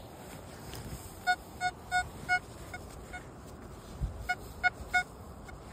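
XP ORX metal detector sounding its target tone: a run of six short, identical beeps, then three more about a second later, each one a pass of the search coil over a buried metal target.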